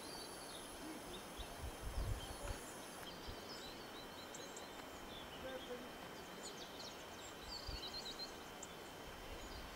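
Faint open-air hiss with scattered small bird chirps coming and going. A few low thumps sound around two seconds in and again later on.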